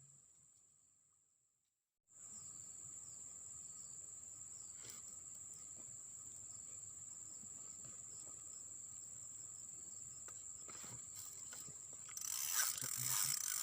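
Steady high-pitched drone of insects, crickets or cicadas. It fades out to a moment of silence about two seconds in, then resumes abruptly. Near the end a louder rustling, rattling noise starts over it.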